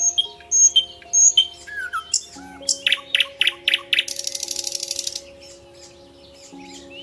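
Songbirds chirping over soft, sustained background music. Short high chirps repeat in the first second and a half, a few louder notes come about three seconds in, and a fast rattling trill runs for about a second from four seconds in.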